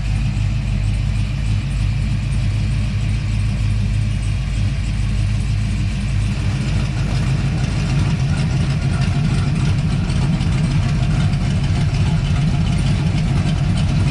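1970 Dodge Coronet's big-block Mopar V8 idling steadily through 2-inch headers, 3-inch pipes and Flowmaster 40 series mufflers. About halfway through, the exhaust note turns louder and rougher as the electric exhaust cutouts open.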